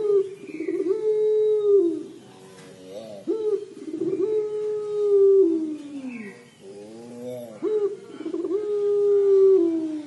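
Puter pelung, a long-voiced domestic ringneck (Barbary) dove, giving its drawn-out 'crying' coo: three long calls about three and a half seconds apart, each a held note that slides down in pitch at the end.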